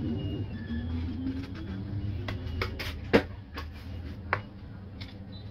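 A few light clicks and knocks as a metal cake scraper and turntable are handled while whipped cream is smoothed on a cake, the sharpest knock just after three seconds, over a low steady hum.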